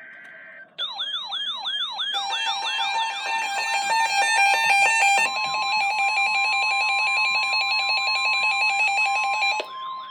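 Emergency Alert System tone sequence. It opens with a brief buzzy data burst, then electronic siren wails falling in pitch about four times a second, joined by the steady two-tone EAS attention signal and layered electronic beeps. About five seconds in, the single steady NOAA Weather Radio alert tone adds in; near the end the attention signal and beeps cut off, leaving the siren wails.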